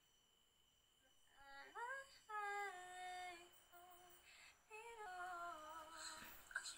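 A woman's voice humming a short tune, starting about a second and a half in. It opens with a rising slide, then holds a few long notes that drift slowly downward.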